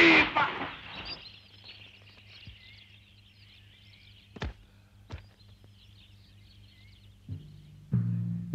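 Birds chirping over quiet ground noise, with two sharp gunshots about a second apart midway. Loud music dies away at the start, and film score with deep drum beats comes in near the end.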